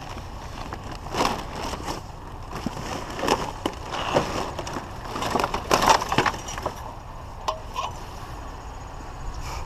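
Irregular clatter, knocks and scraping of hard plastic and metal parts as a discarded ceiling fan is pulled out of a junk pile and handled, in several bursts with a few single clicks near the end.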